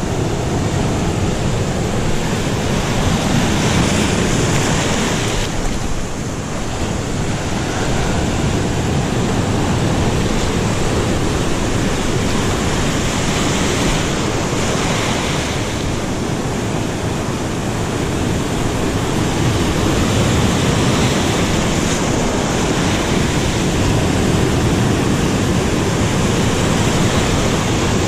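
Heavy ocean surf breaking and washing in foam around sea rocks: a steady, loud wash of water that dips and swells a little as the waves come and go.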